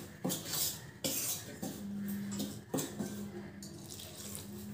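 A spoon scraping and knocking against a steel pot while stirring rice flour with hot water into a dough, in irregular strokes that come thicker in the first three seconds and thin out after.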